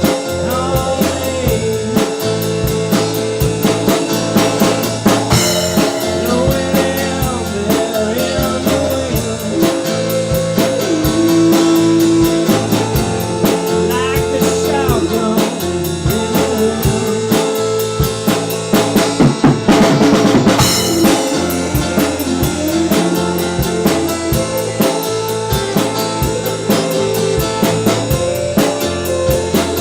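Blues-rock band playing an instrumental passage with no vocals: drum kit beat, bass, and a lead electric guitar playing bending notes, with a flurry of drum and cymbal hits about two-thirds of the way through.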